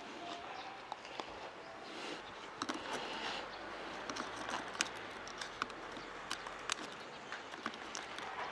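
A small pointed tool scratching and picking at an ostrich eggshell to bore a hole, giving irregular sharp clicks and ticks over a gritty scraping.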